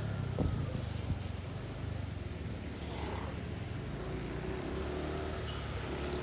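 A vehicle engine runs with a steady low hum amid traffic on a wet road, with a short knock about half a second in.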